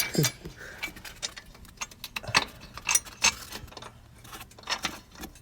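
Hand tools and metal parts being handled: irregular sharp clicks and clinks of metal on metal.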